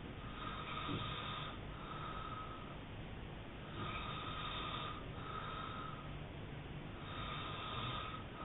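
A man snoring hard in his sleep: three snoring breaths about three seconds apart. Each breath is a rasping stretch followed by a shorter, higher-pitched one.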